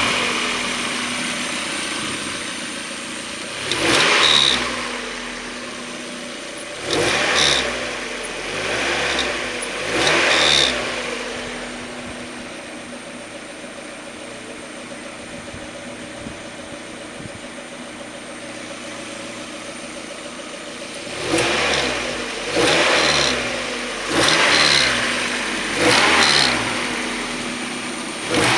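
1994 Mazda Miata's 1.8-litre four-cylinder engine blipped repeatedly from idle, each rev falling back to idle, with a steady idle for about ten seconds in the middle and quicker blips near the end. The owner hears a rotating noise as the revs drop, which he places at the back of the intake side of the head and no longer takes for the crank angle sensor.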